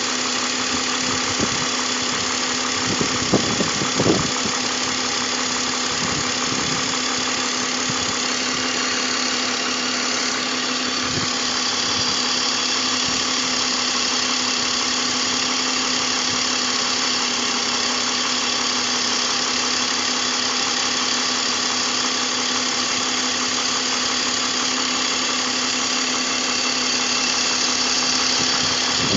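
BMW M54 straight-six engine idling steadily, with a few short knocks about three to four seconds in.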